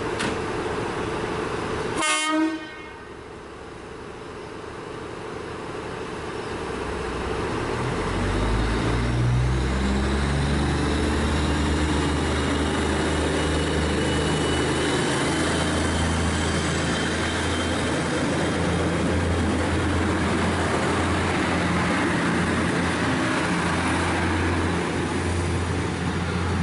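One short horn blast from an Irish Rail 2800 Class diesel railcar about two seconds in. Its diesel engine then comes up in loudness and pitch as it pulls away, and runs steadily under load to the end.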